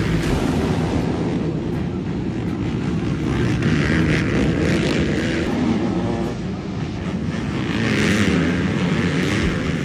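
Racing ATV engines running hard and revving, the sound swelling loudest about four seconds in and again near the end.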